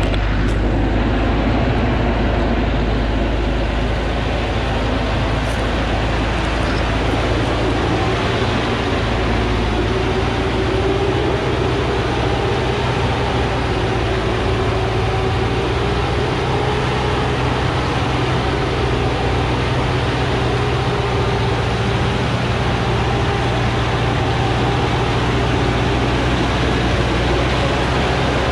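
Diesel engine of a Thaco Forland truck heavily loaded with acacia logs, running steadily under load as it climbs a steep dirt track.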